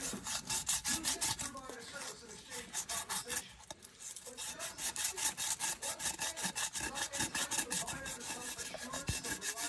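Crumpled aluminum foil wetted with soapy water being scrubbed back and forth against a rusty steel bicycle rim, taking the rust off. The strokes are quick and even, weaker for a moment in the middle and stronger and steadier over the second half.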